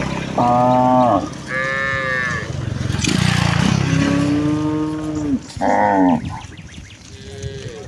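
Cattle mooing: about five calls of different pitches, some higher and some low and drawn out. The longest, lowest moo runs for nearly two seconds near the middle.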